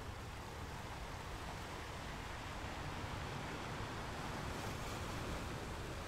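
Small ocean waves breaking and washing onto a sandy shore: a steady rush of surf that swells slightly around the middle.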